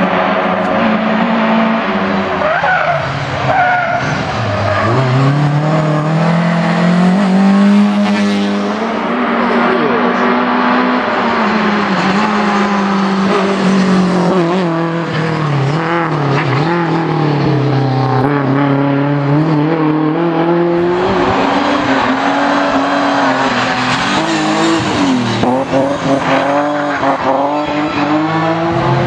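Rally car engine at racing speed, the revs repeatedly climbing and dropping through gear changes and corners. The sound cuts in suddenly at the start.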